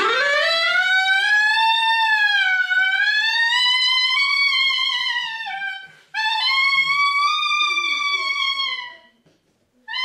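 Solo clarinet rising in a glide into a long high note whose pitch wavers and bends, sliding down before it stops about halfway through. After a short break a second long, wavering note follows and fades out about a second before a new note begins.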